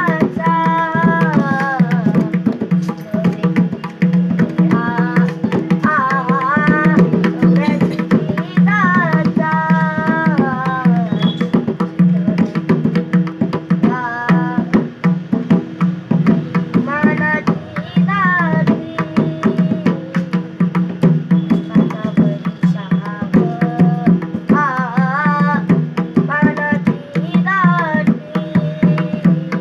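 Tabla accompanying a solo singer: steady tabla strokes throughout under melismatic sung phrases that come and go every few seconds, over a sustained drone.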